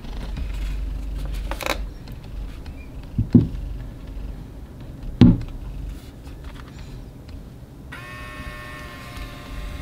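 Hands handling a small plastic Instax Mini Link photo printer, with low rubbing noise and two dull thumps about two seconds apart. Near the end a set of steady held tones starts.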